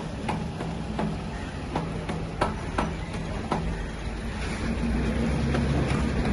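Bajaj M 7.5 kVA diesel generator engine being started with a hand crank: a run of sharp clacks, then the engine running steadily and louder from about four and a half seconds in.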